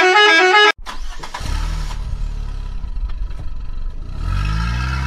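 A melodic multi-note vehicle horn tune that stops about a second in, then the low rumble of a heavy engine whose pitch rises near the end.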